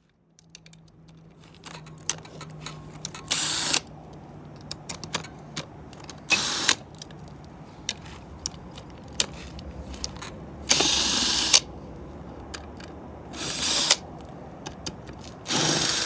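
Ratchet wrench with a socket extension clicking in several short bursts while backing out the bolts of a Honda Ruckus scooter's kickstart cover, with scattered small metal clicks and knocks of tools and parts between the bursts.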